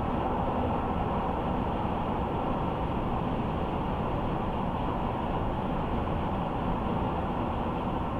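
Car driving along, a steady rush of tyre and road noise that holds even throughout.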